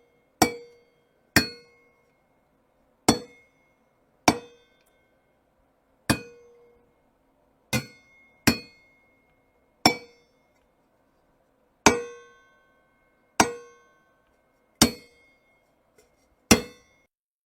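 A metal object struck about a dozen times at uneven intervals of one to two seconds. Each bang is sharp and rings briefly at a few fixed pitches before dying away.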